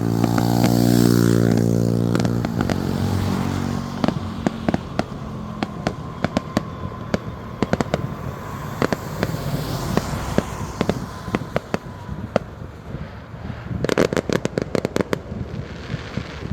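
Fireworks crackling in rapid, sharp pops, with a dense burst of bangs near the end. At the start a vehicle engine runs with a shifting pitch and fades out after about three seconds.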